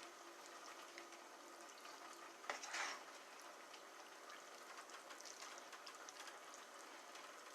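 Food simmering faintly in a pot, a quiet steady hiss with small scattered crackles, and a click followed by a short swish about two and a half seconds in.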